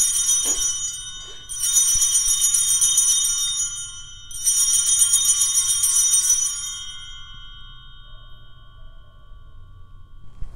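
Altar bells rung at the elevation of the chalice during the consecration: bright jingling rings in three shakes of about two seconds each, the last ringing fading away over a few seconds.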